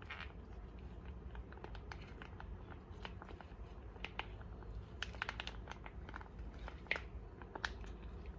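Homemade naan being bitten and chewed: scattered soft crunches and small clicks at an irregular pace, a couple of sharper ones near the end.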